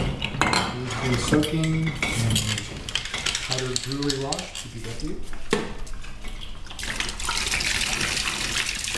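Glass beer bottles clinking against each other and sloshing in a tub of water as they are handled and scrubbed with a bottle brush. Near the end, water splashes steadily as it pours out of an upturned bottle into the tub.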